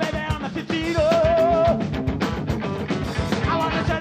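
Live blues-rock band playing: electric guitar over an even drum beat, with a held, wavering note about a second in.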